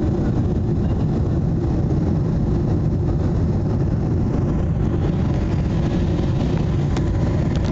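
Cabin noise inside a Boeing 777 airliner on approach: the steady, low rumble of the engines and airflow, unchanging throughout.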